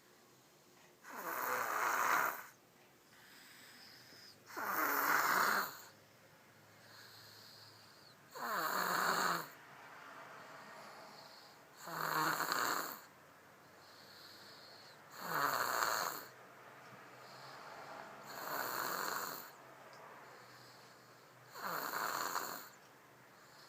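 A baby snoring: seven snores at an even rhythm, about one every three and a half seconds, each sliding down in pitch.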